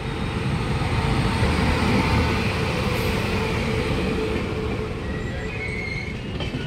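Passenger train hauled by an electric locomotive passing close by: steady rumble and clatter of the coaches' wheels on the rails.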